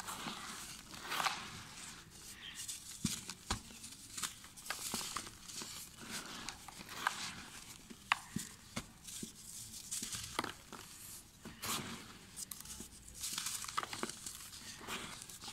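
Dry red dirt crumbled and sifted between bare hands into a heap of loose dirt. A gritty hiss of falling grains swells and fades in waves, broken by many small crunches and ticks as dry lumps break apart.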